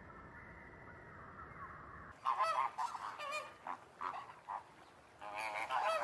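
Flock of flamingos giving loud, goose-like honking calls in repeated bursts, starting about two seconds in after a faint steady hiss.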